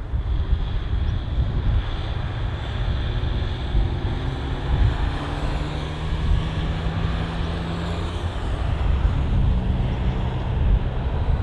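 Jet aircraft engines running as the plane passes: a steady rumble with a faint whine on top.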